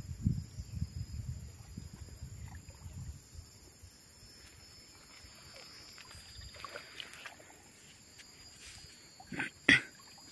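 A few low thumps in the first three seconds, then, near the end, two quick splashes as a cast net is thrown and lands on the pond water.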